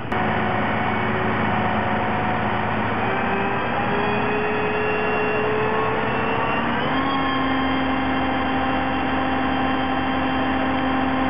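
Heavy equipment engine running steadily. Its pitch creeps up slowly from about three seconds in, then steps up about seven seconds in and holds there, as the engine is revved higher.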